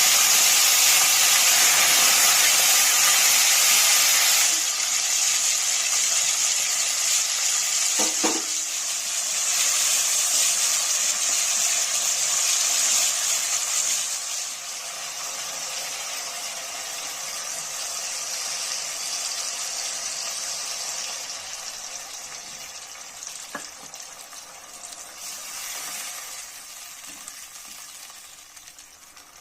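Food frying in hot oil in a pan: a loud, steady sizzle that drops in steps and dies away toward the end. A single knock about 8 seconds in.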